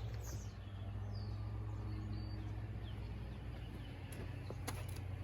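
Quiet outdoor ambience: a steady low hum with faint bird chirps, and two sharp clicks near the end.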